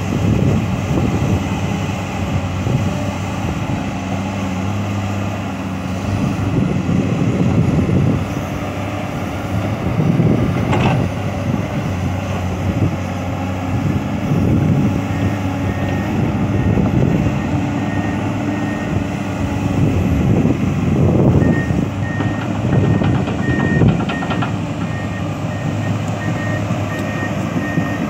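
Komatsu PC200 hydraulic excavator's diesel engine working, its note swelling and easing again and again as it takes load. In the second half a vehicle's reversing beeper sounds, steady rapid beeps.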